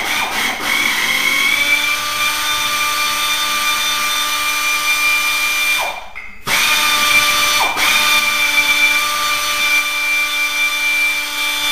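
Power wrench spinning the nut off a riding mower's bottom pulley, in two long steady runs of whine that each rise in pitch as they start, with a short stop about six seconds in.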